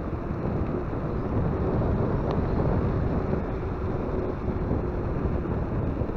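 E-bike riding along a road: wind buffeting the handlebar microphone over a low rumble from the tyres, with a faint steady whine underneath.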